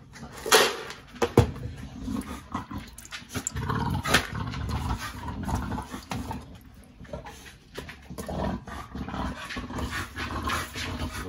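A dog vocalising in low, irregular sounds, with a few sharp knocks from a metal cooking pot being handled.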